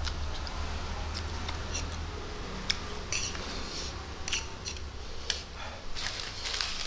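Fork clicking and scraping against a plate as spicy instant noodles are stirred and picked up, a few sharp separate clinks, with wet eating noises near the end.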